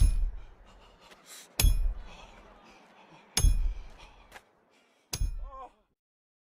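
Intro sound effects: four heavy booming impact hits about a second and a half apart, each with a sharp crack and a slow decaying rumble, the last one shorter, then silence.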